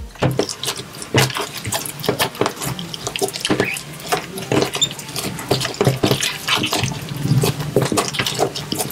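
Wet slime being squished and kneaded by hand: a dense, irregular run of sticky squelches and crackles.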